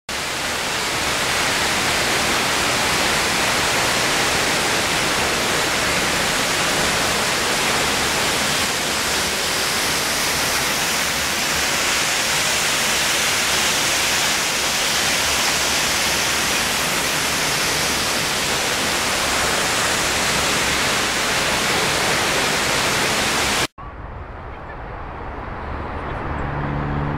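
Small rock waterfall: a loud, steady rush of falling water with no break. About 23 seconds in it cuts off suddenly, giving way to a much quieter outdoor background with a low hum near the end.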